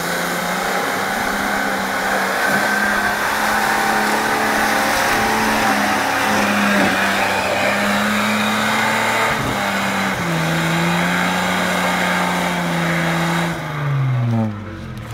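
Nissan GQ Patrol engine held at high revs under load, the pitch wavering as it struggles for traction up deep mud ruts on 37-inch tyres. Near the end the revs fall away in a steady downward slide.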